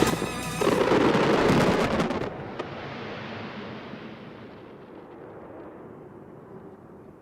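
Fireworks bursting overhead, loud booms with a crackle of sharp pops for about two seconds, one more pop shortly after. The rumble then dies away slowly as it echoes.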